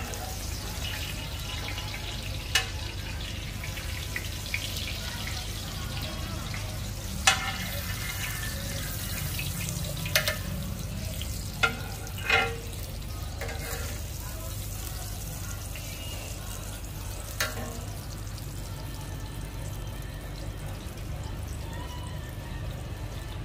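Street food stall ambience: a steady hiss over a low hum, broken by about six sharp clinks of cooking utensils, with faint voices.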